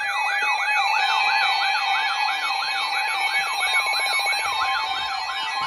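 Weather radio alert siren: an electronic warbling tone that sweeps up and down about three times a second, sounding as a new warning comes in.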